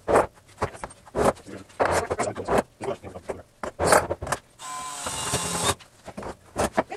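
Cordless drill/driver driving screws into a wooden frame in several short bursts, then a steadier run of about a second a little past the middle.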